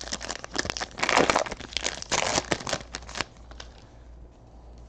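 Foil wrapper of a trading-card pack crinkling and tearing as it is ripped open, a dense crackle for about three seconds, then fading to quieter handling of the cards.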